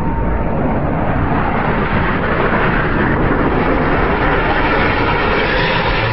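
Jet aircraft engines running loudly on a carrier deck: a steady rushing noise with no clear tone that grows brighter over the first two seconds.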